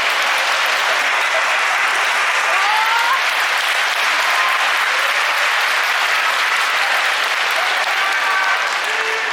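Sumo arena audience applauding steadily, with a few voices calling out over the clapping.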